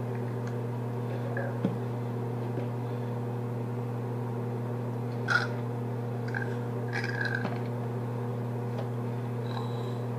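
A steady low electrical hum, with a few brief high sounds over it; the loudest comes about five seconds in.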